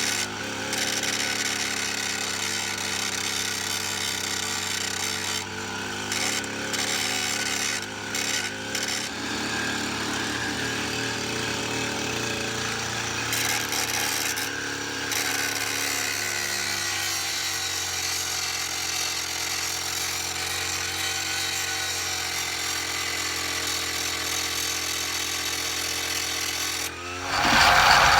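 Gas string trimmer engine running steadily and spinning a 12-inch abrasive metal cutoff blade that grinds against the steel teeth of a forestry mulcher, sharpening them. The grinding hiss drops out briefly a few times, and the sound jumps much louder near the end.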